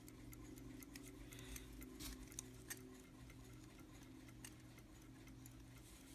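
Faint ticking of a running Ingraham pin-lever pocket watch movement, with small clicks of a flathead screwdriver prying at the dial tabs.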